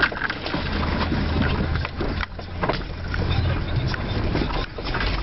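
Off-road 4x4 engine running steadily while driving over rough ground, with frequent short knocks and rattles.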